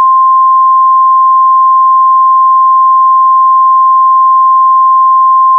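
Emergency alert attention tone: a single loud, steady electronic tone held at one pitch, signalling the start of an emergency alert broadcast.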